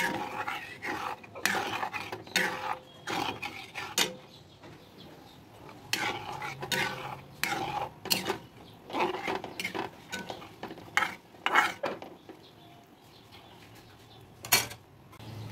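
A metal ladle stirring curry in a metal wok, scraping and clinking irregularly against the pan. Near the end there is a quieter pause of about two seconds, then one sharp clink.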